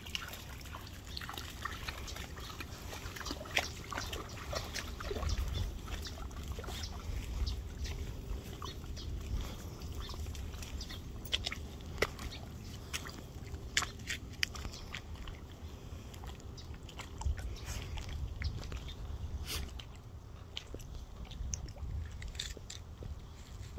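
A dog wading and splashing in shallow water, with scattered sharp clicks over a low, fluctuating rumble.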